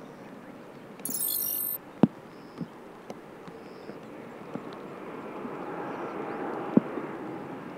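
Jet airliner's engine noise, a distant rumbling haze that swells steadily over the second half. A short high-pitched chirp about a second in and a few sharp taps sit over it.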